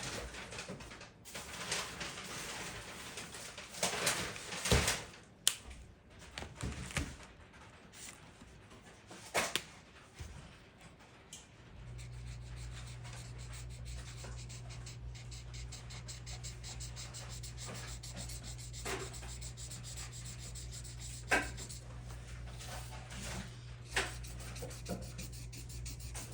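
Drawing tool scratching and rubbing on paper in short, irregular strokes as a picture is coloured in, with a few clicks. About halfway through a low steady hum starts up and carries on under the strokes.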